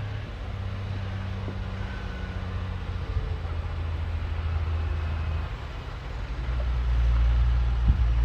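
Heavy diesel engine of a bulldozer running steadily at a low drone, growing louder about six and a half seconds in as it takes more throttle, with one sharp knock near the end.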